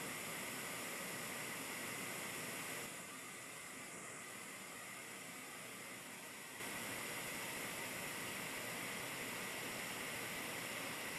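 Faint, steady hiss of air flowing through a Leister LHS hot-air heater. It drops a little quieter about three seconds in and comes back up near seven seconds, both times abruptly.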